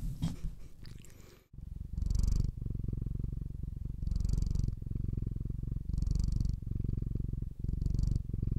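Domestic cat purring with its chin pressed right against a dynamic microphone. From about a second and a half in, the purr is a deep, steady rhythmic rumble that swells with a breathy rush about every two seconds as the cat breathes in and out.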